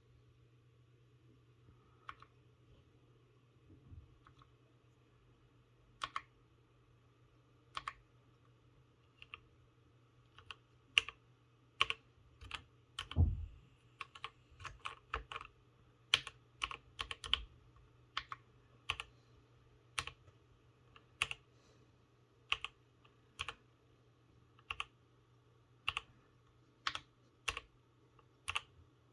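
Keychron K8 mechanical keyboard being typed on slowly: single, irregular key clacks, a few seconds apart at first, then about one or two a second from about ten seconds in. One heavier, deeper thud comes about halfway through.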